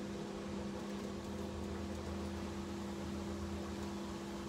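A steady machine hum, holding two constant low tones over a light background hiss.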